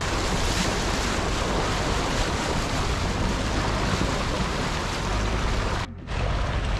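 Pickup truck wading through a shallow river: water rushing and splashing against the front wheel and door in a steady loud wash over a low rumble. The sound drops out briefly near the end.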